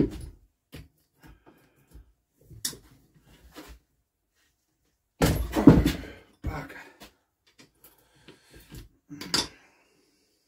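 Scattered clinks and knocks of hand tools and metal being handled on an air-cooled single-cylinder BSA engine as its tight head bolts are worked loose. A louder clatter comes a little after five seconds and another shortly before the end.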